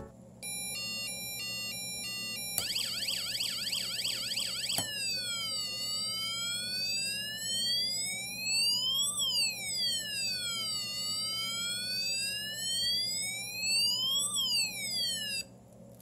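A UM3561 siren-generator chip played through a small loudspeaker, switching abruptly between tones: first a stepping pattern of short alternating notes, then a fast warble about two seconds in, then, about five seconds in, a slow wail that rises for several seconds and drops quickly, twice over, before cutting off near the end.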